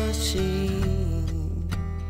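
Acoustic folk song between sung lines: guitar accompaniment, with a held note ringing over the chords in the first second.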